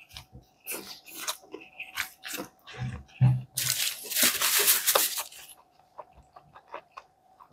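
Close-up eating sounds of biting into and chewing a McDonald's Angus burger, with many short wet clicks and smacks. About three and a half seconds in comes a stretch of paper crinkling lasting over a second as a sheet of paper is handled.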